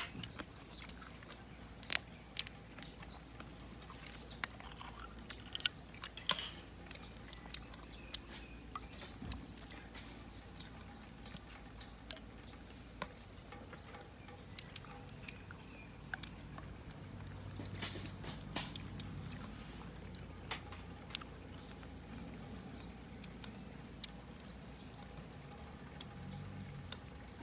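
Faint, irregular crackling from steak cubes cooking in a cast iron skillet over a wood-burning stove: scattered sharp pops and ticks, a few of them louder, over a low hum.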